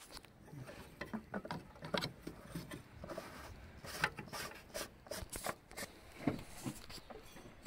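Irregular light clicks, taps and rubbing of hands handling the rubber fuel hoses and plastic clips on a diesel fuel filter housing.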